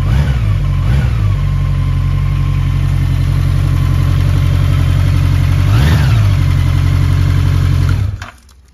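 Honda CB1100RS's air-cooled 1140 cc inline-four idling, blipped up and back down twice right at the start and once more about six seconds in, then switched off near the end.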